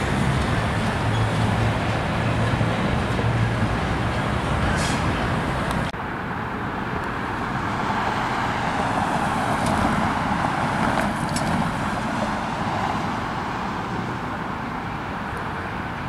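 Diesel switcher locomotive approaching along the track, its engine running with a steady low hum. About six seconds in the sound cuts to road traffic, a vehicle passing with a rushing sound that swells and fades.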